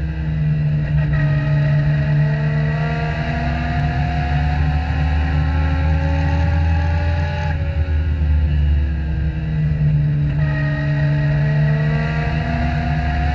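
Legend car's Yamaha 1200 cc four-cylinder motorcycle engine heard from inside the cockpit at racing speed, revs climbing steadily down the straight. Its pitch drops abruptly about seven and a half seconds in as the driver lifts for a turn, then builds again, with another drop about ten and a half seconds in.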